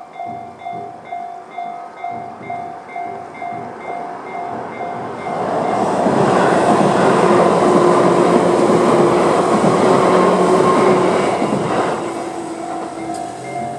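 Electronic railway level-crossing alarm (Tobu type C tone) ringing in even strikes about twice a second. From about five seconds in, an electric train passes through the crossing and drowns the bell for around seven seconds. The bell is heard again as the train moves away.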